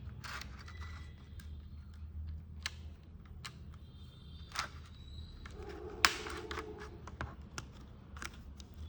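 Scattered small clicks and taps from handling a coin-cell battery and its holder while connecting it to an LCD writing pad, with one sharper click about six seconds in, over a steady low hum.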